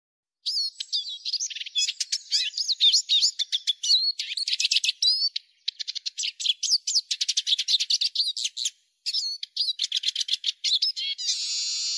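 Eurasian siskin song: fast, high twittering and chattering trills in bursts with short pauses, and near the end a drawn-out buzzy wheeze.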